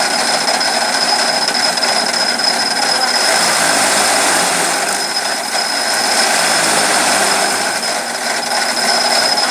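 Chaff cutter machine running steadily, with a constant high whine over the mechanical noise and a lower hum that swells for a few seconds in the middle.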